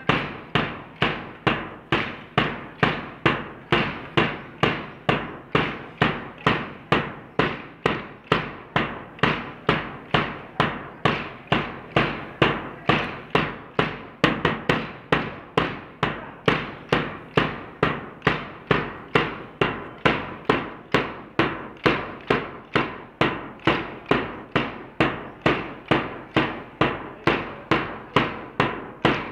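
Many hand-held drill dumbbells struck together in unison by a large group, a sharp clack about twice a second in a steady rhythm.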